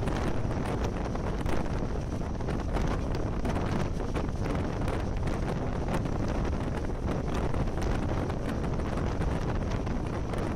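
A train running along the track, heard from a carriage window: a steady low rumble with wind rushing over the microphone and many light clicks.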